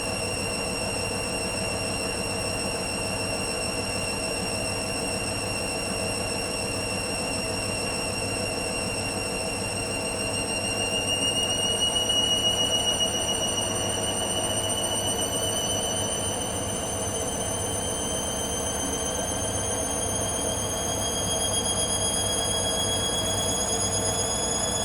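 Hoover Dynamic Next washer-dryer in its spin, the motor giving a steady high whine over a drum hum; about ten seconds in the whine starts to rise in pitch as the drum speeds up.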